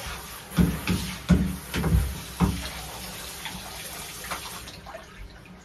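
Handheld shower spraying water over a dog standing in a bathtub, a steady hiss that fades out a little before the end. Four louder splashes land in the first half.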